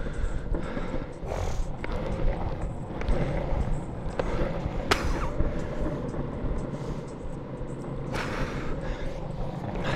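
Longboard wheels rolling over pavement: a steady low rumble, with a sharp click about five seconds in and two brief hissing surges of noise, around one and a half and eight seconds in.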